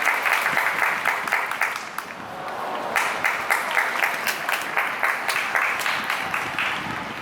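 Stadium crowd clapping in unison to a steady beat, a few claps a second, with a brief lull about two seconds in.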